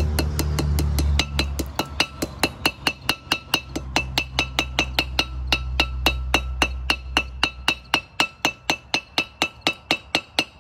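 Quick, light hammer taps, about four to five a second, on the metal rim of a grease seal being driven evenly into the hub of a front brake rotor; each tap rings briefly. The taps start about a second in, over a low hum that fades out near the end.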